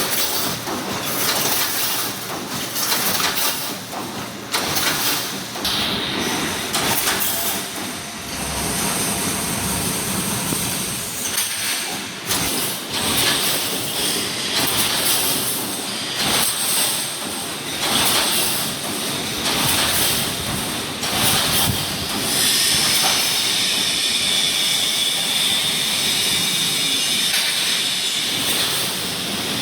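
Wire mesh welding machine running: a continuous mechanical din with irregular clanks, and a stronger hiss over the last third.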